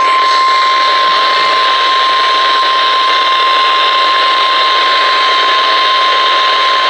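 NOAA Weather Radio 1050 Hz warning alarm tone: a single steady high tone over heavy radio static, the signal that a weather warning is about to be read.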